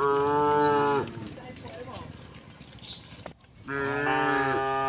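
Cows mooing: one moo of about a second right at the start, and a second, longer moo that begins near the end. Birds chirp faintly in the background.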